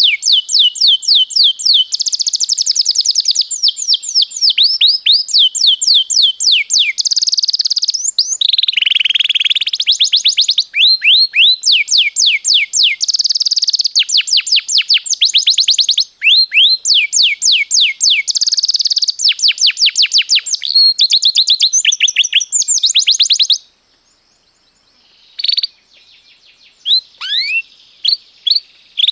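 Domestic canary singing a long, fast song of rapid falling whistled notes and rolling trills, the 'ngroll panjang' long rolls prized in a singing canary. It breaks off about three-quarters of the way in, leaving only a few scattered notes.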